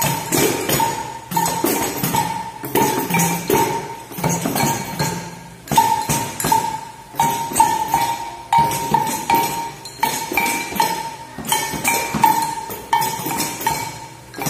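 Several pandeiros, frame drums with metal jingles, struck together in a steady beat of about one and a half strikes a second, with a ringing metallic tone on each stroke.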